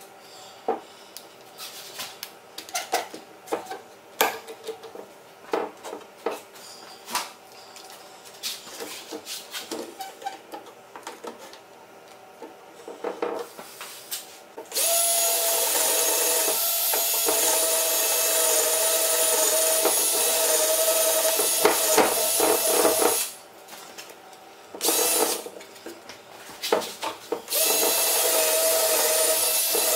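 Scattered knocks and clicks of boards and bar clamps being handled, then about halfway through a power drill starts and runs steadily for some eight seconds, stops, runs again briefly, and starts once more near the end.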